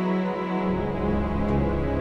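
Background music of slow, sustained held tones, with a deep bass layer coming in a little under a second in.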